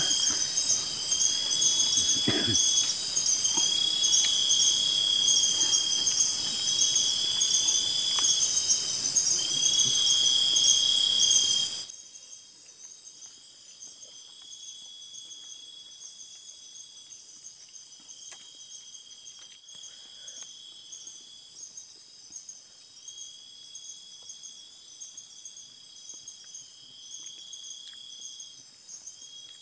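Night insect chorus in tropical forest: a steady shrill high ringing with a faster pulsing layer above it, and one insect's drawn-out call repeating about every two seconds. The chorus drops much quieter about twelve seconds in.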